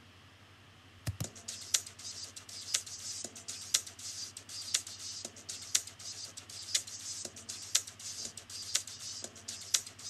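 A song made in GarageBand playing back from an exported MP3: a drum beat with a strong hit about once a second and fast high ticking between the hits, starting about a second in.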